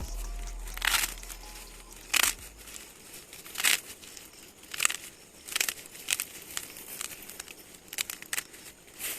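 Dry heirloom rice stalks rustling and snapping in short crinkly bursts, about one a second, as they are cut stalk by stalk with a hand-held finger blade.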